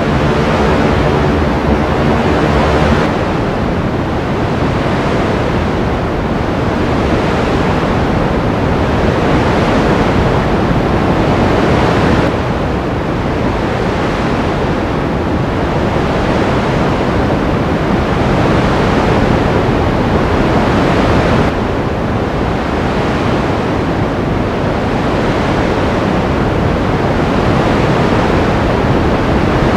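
Ocean surf, a steady rush of waves that swells gently about every nine seconds. A held tone with several pitches sounds under it and stops about three seconds in.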